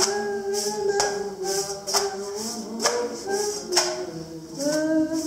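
Background music: a melody of long held notes over a steady beat of about one hit a second, with tambourine-like jingles between the hits.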